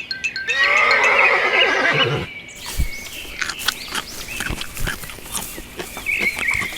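A horse whinnying for about two seconds, starting about half a second in, followed by a run of clicks and knocks.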